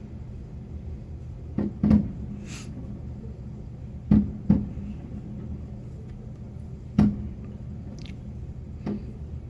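Fireworks display heard from inside a building: a string of sharp booms a second or two apart, the loudest about two, four and seven seconds in, over a steady low rumble.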